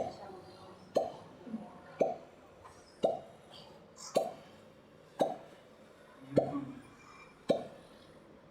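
Dull thumps at a steady pace of about one a second, each short and sharp, with a few faint low hums between some of them.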